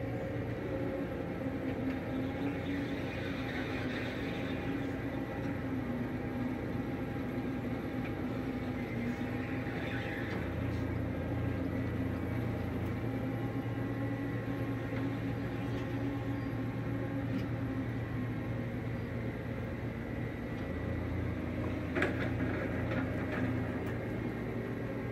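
Narrowboat diesel engine running steadily under way, a low, even drone. There is a single sharp click near the end.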